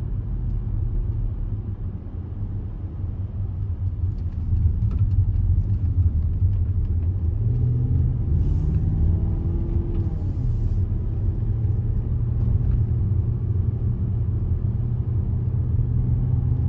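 Steady low rumble of road and engine noise inside the Range Rover's cabin as it drives. The rumble grows a little louder a few seconds in, and around the middle a pitch briefly rises and falls.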